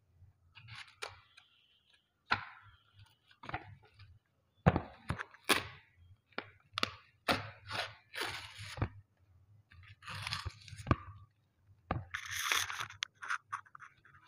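Packaging crinkling and rustling as a canvas board is unwrapped, its plastic wrap and paper cover sheet handled: irregular crackles with sharp clicks and taps. The loudest rustling comes about halfway through and again near the end.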